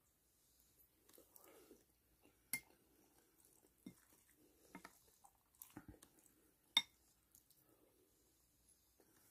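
A spoon clicking and scraping against a food tray while eating, with two sharp clinks, the second and louder one nearly seven seconds in, and a few softer ticks in between. Faint chewing under them.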